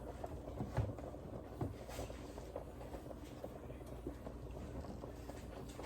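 Faint kitchen handling noises: a few light knocks and clicks in the first two seconds over a low, steady background hum.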